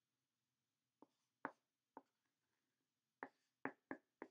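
Felt-tip marker, partly dried out, writing figures on a paper pad: about seven short, sharp strokes, three in the first half and four in quicker succession near the end.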